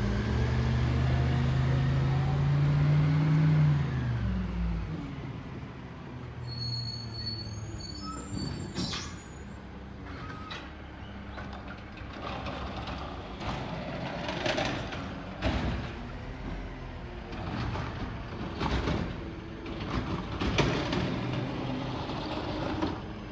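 Garbage truck's diesel engine revving hard, then dropping off about four seconds in as the truck pulls away. It then runs quieter, with several short air-brake hisses as it stops and starts along the route.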